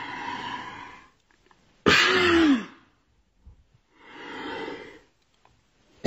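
A woman sneezing, provoked by tickling inside her nostril. A breathy build-up comes first, then a loud sneeze about two seconds in with a short cry that falls in pitch. Another long breathy build-up follows near the end.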